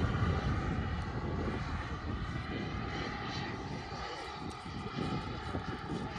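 A scale F9F Panther RC jet's model turbine engine in flight: a steady jet whine and rush that slowly fades as the plane flies away.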